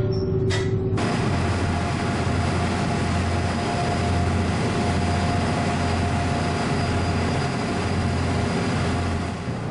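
Small passenger ferry under way: a steady low engine drone with the rush of water from the bow wave and wake along the hull. It comes in suddenly about a second in.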